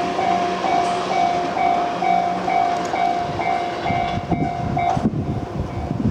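Japanese level-crossing warning bell ringing about twice a second while a freight train runs over the crossing with a rumbling clatter. About five seconds in, the train noise and the bell drop away abruptly, leaving a few low knocks.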